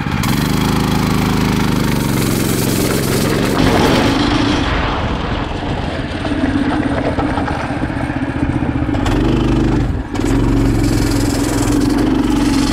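Harbor Freight Predator 212cc single-cylinder engine on a motorcycle frame, revving up under full throttle and running hard as the bike rides off. Its pitch climbs at the start, and the engine sound drops off briefly about ten seconds in before picking back up.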